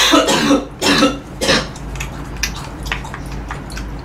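A man coughing, three rough coughs in quick succession in the first second and a half, followed by a few faint clicks.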